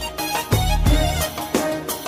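Instrumental break of a Lebanese Arabic pop song, with no singing: a steady percussion beat over bass and melody instruments.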